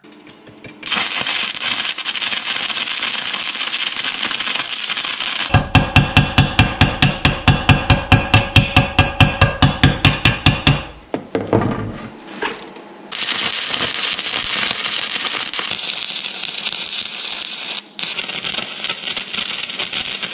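Arc welding a steel pipe to a steel plate: the arc crackles and hisses steadily, stops, and a hammer chips slag off the weld bead at about four knocks a second for some five seconds. After a short scrape the arc crackles again, breaking off for a moment once.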